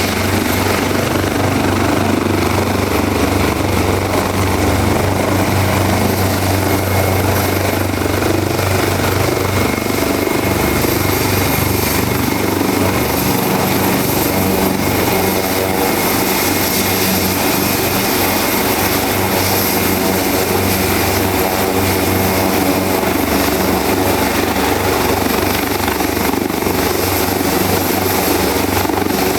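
Leonardo AW189 twin-turbine helicopter running steadily: turbine noise and rotor sound at an even, loud level with no change in pitch.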